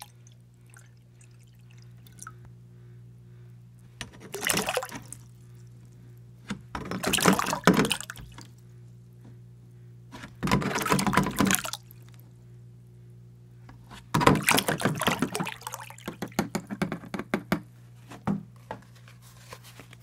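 Water poured from a plastic bottle into a bowl of water in three short bursts. This is followed by a longer stretch of splashing and sloshing, breaking into irregular splashes as the bowl is stirred.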